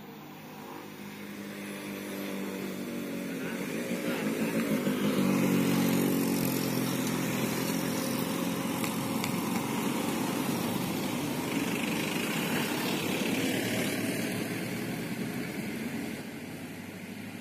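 Motorcycle engine rounding a hairpin bend. It grows louder over the first few seconds, is loudest about five to six seconds in, holds with its pitch rising and falling through the turn, and fades near the end.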